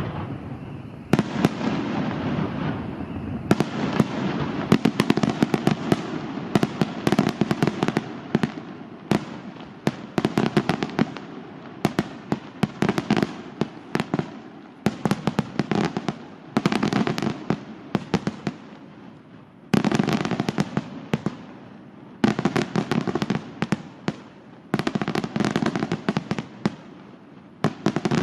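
Aerial fireworks display by La Rosa fireworks: dense rapid cracks and pops over a low rumble, with a fresh volley bursting in every two to three seconds.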